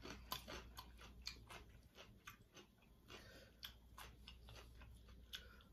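Faint, irregular small clicks and crunches of chewing and of hands picking through seafood-boil food, scattered through the whole stretch with no steady rhythm.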